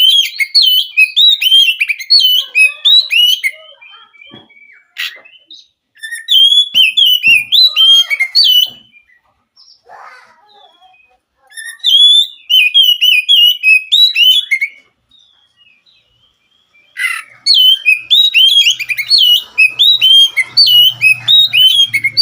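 Oriental magpie-robin (kacer) singing loudly in four bursts of rapid, repeated hooked whistles, several notes a second. Each burst lasts a few seconds, with short pauses between them.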